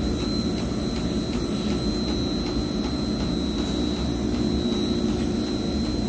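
Pump-room machinery running steadily: an even hum and whir with thin, steady high-pitched tones above it.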